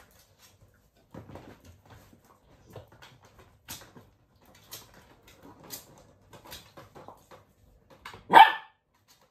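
Dachshund puppies playing on a tiled floor: scattered light clicks and scuffles, then one short bark about eight seconds in, the loudest sound.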